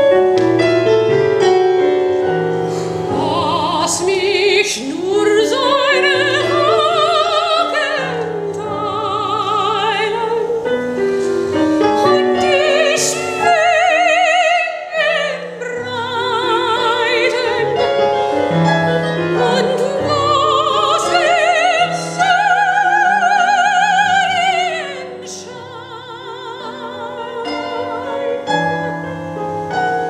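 Mezzo-soprano singing an art song with wide vibrato over piano accompaniment. The voice stops about 25 seconds in and the piano plays on alone.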